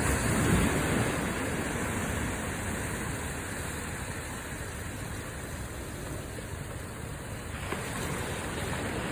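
Small sea waves washing onto a beach: one wave swells and breaks about half a second in, settles into a steady wash, and another comes in near the end.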